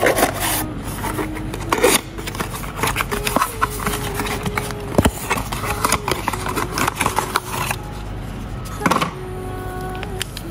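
Cardboard box parts being handled and pulled out: card scraping and rubbing, with a few sharp knocks, over background music with a simple melody.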